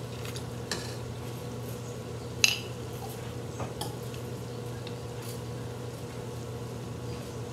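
Stainless-steel turkey baster clinking against a glass canning jar and a steel wok while grease is drawn up and squirted out. There are a few light taps and one sharp, ringing clink about two and a half seconds in, over a steady low hum.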